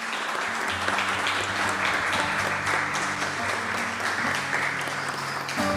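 Audience applauding at the end of a lecture, a dense steady clapping that cuts off abruptly near the end.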